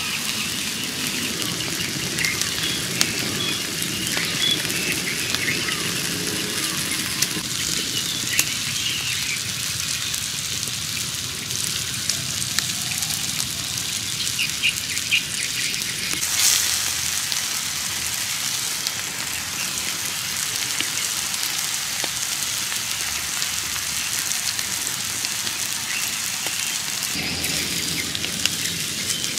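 Beef steaks sizzling on a hot granite stone slab over a wood fire: a steady hiss with scattered small crackles. The hiss briefly flares louder about halfway through.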